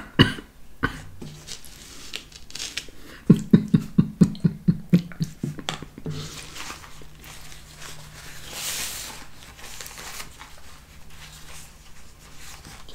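A paper napkin being picked up and unfolded, its paper rustling softly. About a third of the way in comes a quick run of about ten short sounds, about six a second, which is the loudest part.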